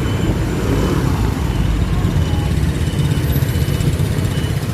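Street traffic noise: a steady low rumble of vehicle engines.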